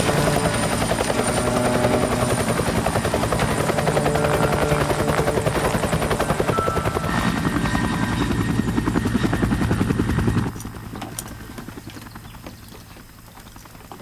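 Helicopter flying close overhead, its rotor chop loud and steady, cutting off abruptly about ten seconds in and leaving a much quieter background.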